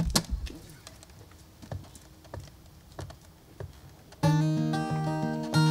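Scattered faint clicks and knocks, then about four seconds in a band starts playing abruptly, led by strummed acoustic guitar chords.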